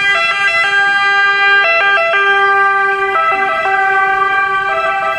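Italian ambulance's two-tone siren sounding loudly, stepping back and forth between a high and a low pitch.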